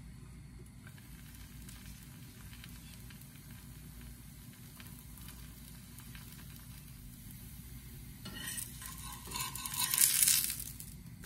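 Whole wheat dosa cooking in a cast iron pan: a faint, steady sizzle with small crackles. Near the end it grows much louder for about two seconds as the dosa is lifted from the pan.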